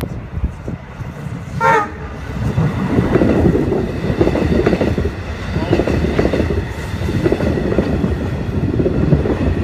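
Long Island Rail Road train passing close by: a heavy rumble and rapid clatter of wheels over the rails, growing louder about two seconds in and staying loud.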